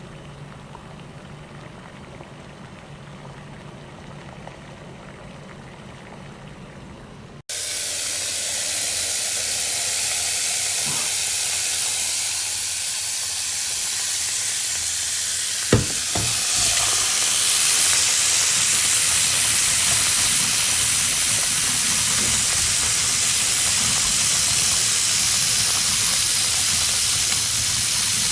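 Water boiling in a pot, a low steady bubbling. After about seven seconds it cuts to a tap running hard into a sink, a loud steady hiss, with a single sharp knock about halfway through.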